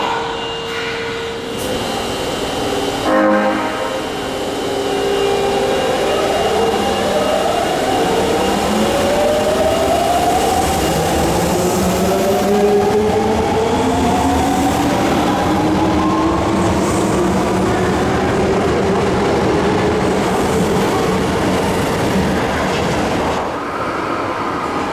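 Osaka Metro 22 series subway train sounding its horn briefly near the start. It then pulls away with the rising whine of its traction motors, which climbs slowly in pitch over steady rail and wheel noise.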